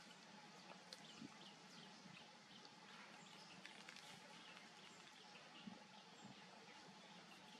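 Near silence: faint outdoor ambience with scattered faint short ticks and chirps.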